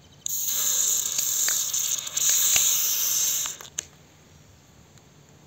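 Shaken soda can opened by its ring-pull: a click, then a loud hiss of escaping gas and fizzing foam for about three seconds, with a few small clicks, cutting off suddenly.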